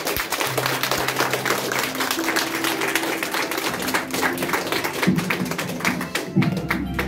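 Audience applauding with many close claps while a music backing track plays under it. A deeper bass part comes in near the end.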